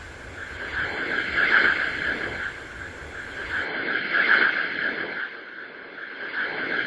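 A rushing hiss that swells and fades several times, with a low rumble underneath that drops away about halfway through.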